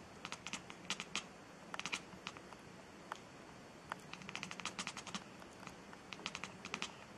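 A white cat chattering: quick runs of sharp clicks from its jaw and teeth, coming in several bursts with short gaps between.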